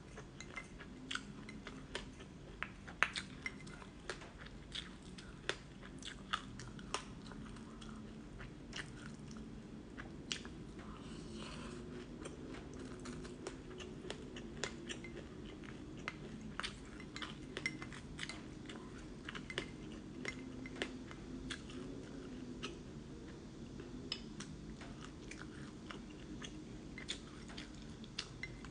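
Close-up chewing and crunching of mouthfuls of black sesame seeds, a run of many small sharp crackles.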